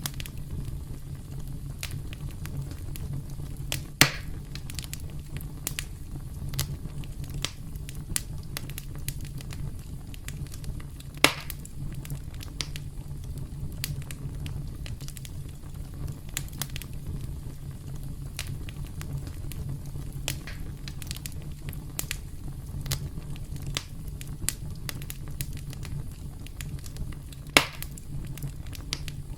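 Campfire crackling, with a constant patter of small snaps over a steady low rumble and three louder pops spread through it.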